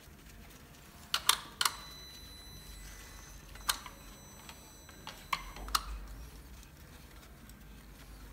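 Sharp metallic clicks and clacks as a compression gauge and its hose fitting are handled at the spark plug holes of a switched-off engine. They come in small groups: three about a second in, one near the middle and three more a little past five seconds.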